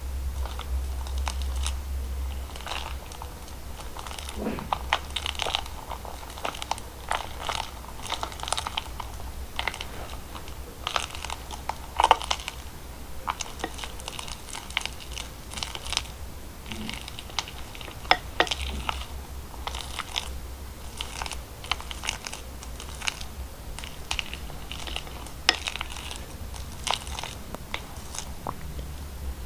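Slime being squeezed and pressed by hand, giving a run of irregular sharp clicks and crackles, over a low steady hum.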